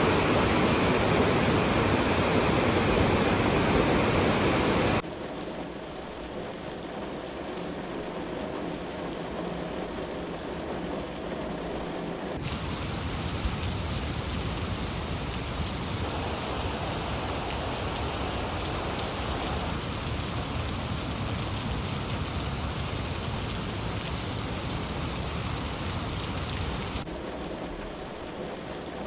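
Steady rushing water of a boulder-strewn mountain river, loudest for the first five seconds; then, after abrupt cuts, a softer steady hiss of rain.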